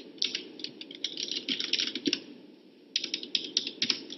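Rapid keystrokes on a Mac laptop keyboard, in two quick flurries of clicks with a short lull near the middle.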